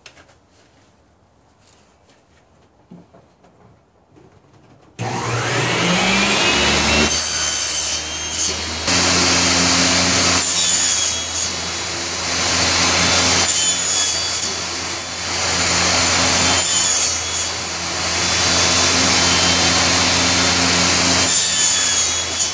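Table saw switched on about five seconds in, its motor whining up to speed, then running loudly while the blade makes several crosscuts through quarter-inch plywood blanks. A few faint clicks come before it starts.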